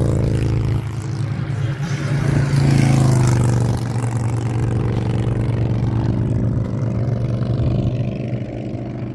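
A vehicle engine runs at a steady speed, swelling briefly about two to three seconds in and then settling, with wind noise over it.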